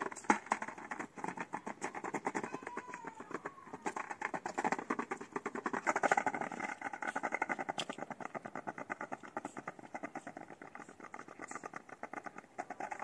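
Skateboard wheels rolling over interlocking paving stones, a fast, even clatter as they cross the joints, loudest about halfway through and fading near the end.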